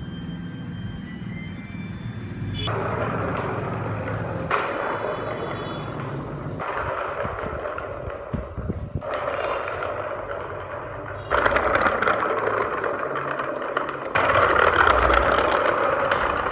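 Small electric motor of a remote-controlled wooden model car whirring as its wooden wheels roll over a hard surface. The sound jumps in level abruptly several times and is loudest near the end.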